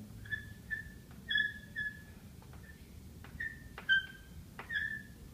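Chalk squeaking and tapping on a blackboard as a word is written: about eight short, high squeaks with sharp clicks between them.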